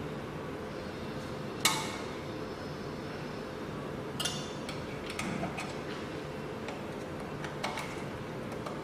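Metal parts of a key cutting machine's clamp and decoder clinking as they are handled, a few sharp ringing clicks with the loudest about two seconds in, over a steady faint hum.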